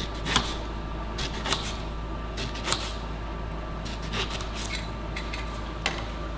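Kitchen knife slicing a lemon, the blade knocking down onto the cutting surface in a series of irregular sharp taps.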